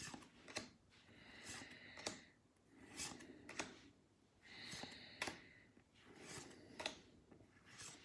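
Pokémon trading cards slid one at a time across a hand-held stack, each a soft papery swish ending in a light snap: about eight in all, at uneven intervals.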